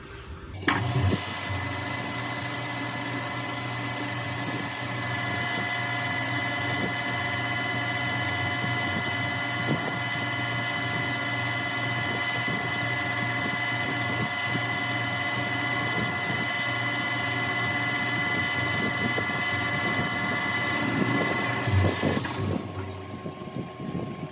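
Metalworking machine, likely a lathe, running steadily with a hum of several steady tones. It starts about half a second in and stops near the end.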